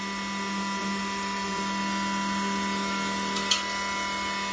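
Small Harbor Freight mini chop saw's electric motor running steadily with its blade spinning free, a steady hum, with one short tick about three and a half seconds in.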